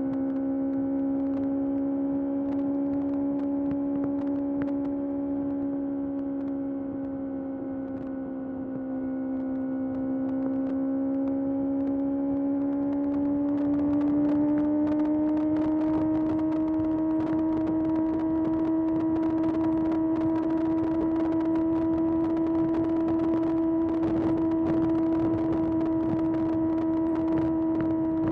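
2025 Kawasaki ZX-6R's 636 cc inline-four engine running at steady riding revs. Its pitch sags slightly about eight seconds in, then climbs as the throttle opens around fourteen seconds in and holds higher.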